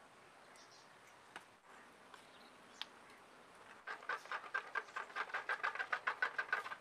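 Steel spoon beating thick rice batter mixed with curd in a stainless steel bowl. After a faint click or two, a rapid rhythmic run of stirring strokes, several a second, starts about four seconds in.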